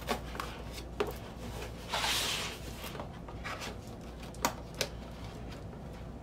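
Scissors snipping through packing tape on a cardboard record mailer, then a brief scraping rustle of cardboard and tape about two seconds in as the flap is pulled open, and two light cardboard knocks past the four-second mark.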